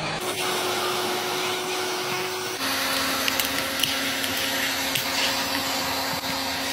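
Heat gun blowing hot air onto a cracked iPad screen to soften the adhesive under the glass: a steady fan hiss with a whine that drops to a lower pitch about two and a half seconds in.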